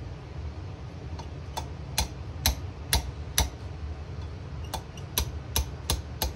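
Small ball-peen hammer lightly tapping a steel pin into the trigger housing of a Remington 700 action: about a dozen sharp metallic taps, roughly two a second, in two runs with a short pause midway.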